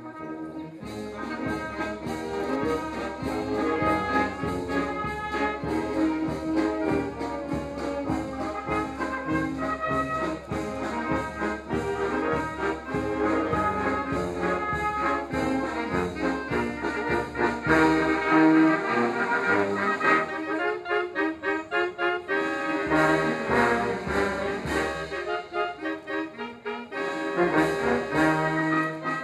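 Brass band music playing, several brass instruments sounding sustained notes over a steady beat; the low parts drop out twice in the second half, leaving the higher brass.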